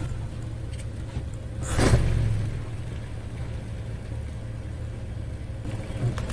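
Car engine running with a steady low rumble, and a short loud burst of noise about two seconds in.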